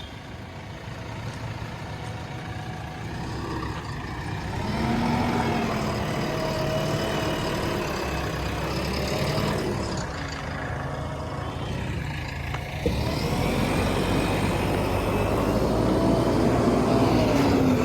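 A vehicle's engine running and growing steadily louder, as if being driven closer.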